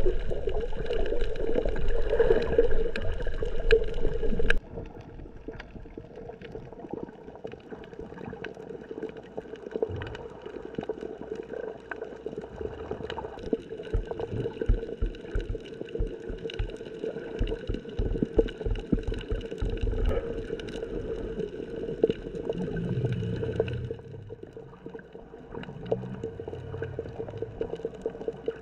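Water gurgling and sloshing over a steady hum, louder at first and dropping off suddenly about four and a half seconds in, with scattered low thumps later on.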